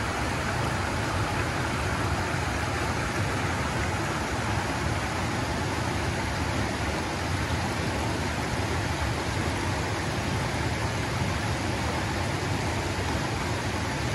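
Water rushing steadily over a stepped weir and through rocky shallows.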